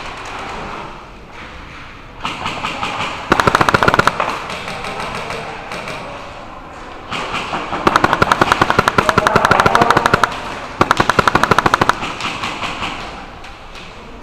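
Airsoft guns firing rapid full-auto bursts of sharp cracks, several bursts in turn, the longest lasting about two seconds.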